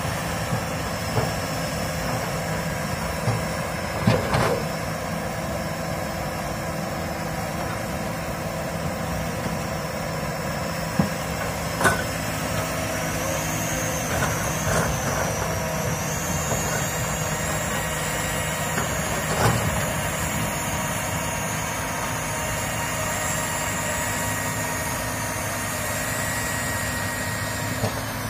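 Komatsu hydraulic excavator's diesel engine running steadily as the machine works and moves through brush, with a few short sharp knocks now and then.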